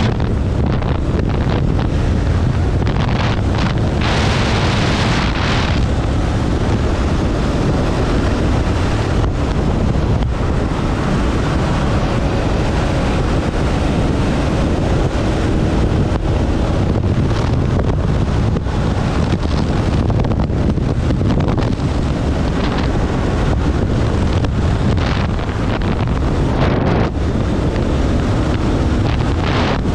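Heavy wind rush over the microphone of a moving motorcycle, with the Kawasaki KLR650's single-cylinder engine running steadily under it.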